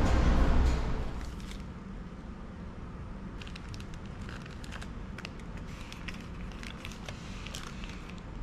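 Scattered light clicks and crinkling over a low steady hum, after a louder sound fades out in the first second or two.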